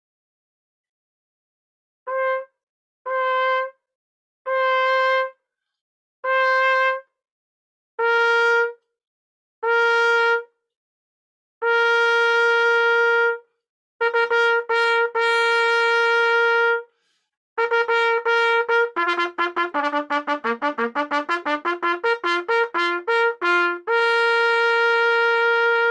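Trumpet playing a slur exercise. Four short separate notes on one pitch come first, then longer held notes and a run of quick notes. Next comes a fast run of connected notes stepping down in pitch and back up several times, and it ends on a long held note.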